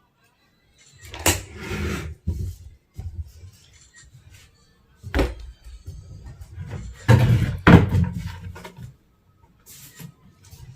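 Knocks, thumps and clatter of a bed frame's parts being worked loose and moved during disassembly. There are single sharp knocks about one and five seconds in, and the loudest burst of knocking comes at about seven to eight seconds.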